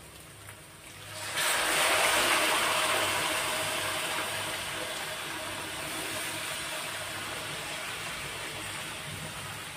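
Boiled chickpeas and their cooking water poured into hot oil-fried masala in a steel kadhai, setting off a loud sizzle about a second in that slowly dies down as the liquid cools the pan.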